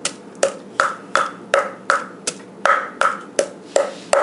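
Wooden pestle pounding garlic and shallots in a mortar: a steady knock about three times a second, each stroke with a brief ring.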